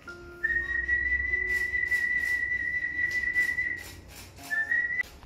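Music with a long, high, whistle-like held note over a few lower sustained notes that change pitch like a melody, broken by a short gap about half a second in and again near the end, with a few short clicks.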